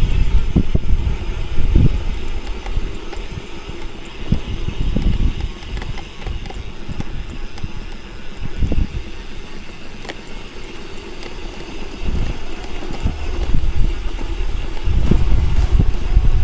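Wind buffeting a handlebar-mounted action camera's microphone, with tyre noise, as a bicycle descends on a concrete road at about 20–40 km/h. The rumble eases in the middle and grows loud again about twelve seconds in.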